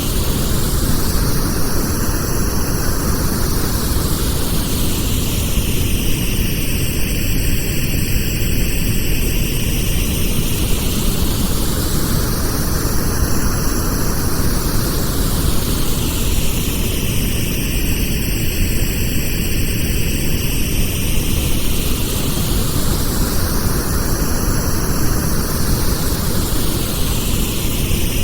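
Pink noise: a steady, even hiss weighted toward the low end, with a slow whooshing sweep that rises and falls about every eleven seconds.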